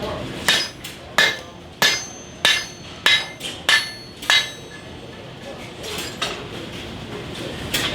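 Blacksmith's hammer striking metal on an anvil: seven ringing blows at a steady pace of a little under two a second, then a pause with one lighter knock.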